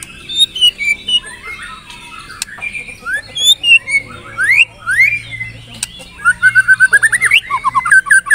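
White-rumped shama (murai batu) singing a loud, varied song of clear whistles and rising slurred notes, with a fast run of about a dozen short repeated notes near the end. Other birds chatter faintly behind it.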